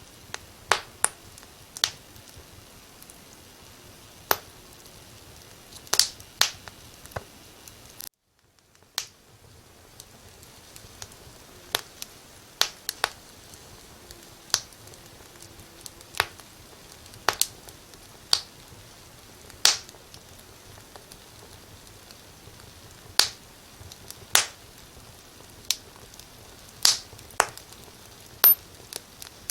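Wood fire crackling, with irregular sharp pops a second or two apart over a faint steady hiss. About eight seconds in, the sound cuts out completely for under a second.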